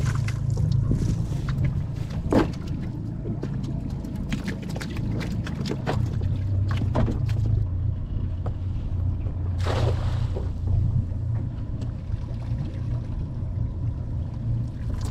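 Wet shrimp cast net being handled on a boat: drips and small clicks of the lead line as it is gathered and loaded. About ten seconds in there is a short splash as the thrown net hits the water. A steady low engine hum runs underneath.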